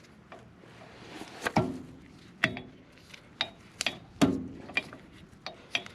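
Metal hand tools clinking and knocking: a dozen or so irregular sharp clinks, some with a short metallic ring, the loudest about a second and a half in and just after four seconds.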